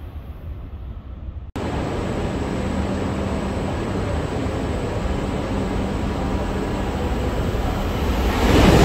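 Shinkansen platform: a steady low rumble of trains with a faint constant hum. It grows louder near the end as a Tsubasa and Yamabiko coupled train approaches on the near track. Wind noise before an abrupt cut about a second and a half in.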